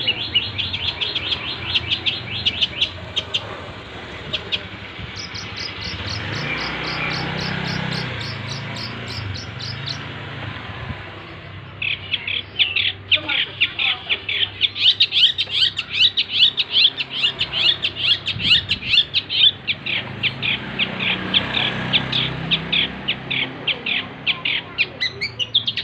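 Long-tailed shrike (cendet) singing in fast runs of sharp high repeated notes, about six a second, in long bouts broken by short pauses. It is a full song with rapid 'tembakan' bursts and mimicked phrases.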